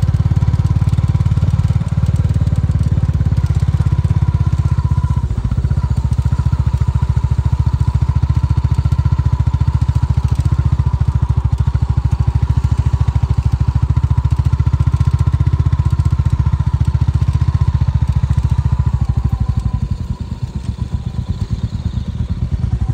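BMW G 310 GS's 313 cc single-cylinder engine running at low, steady throttle as the motorcycle is ridden slowly on dirt, its exhaust pulses coming evenly. About twenty seconds in, the engine note drops and gets quieter.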